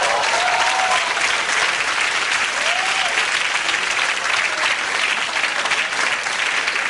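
Studio audience applauding, a dense, even spell of clapping.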